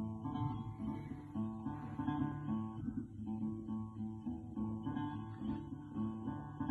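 Acoustic guitar music with a steady strum, played through a car's stereo speakers from a video ad on the dashboard touchscreen head unit.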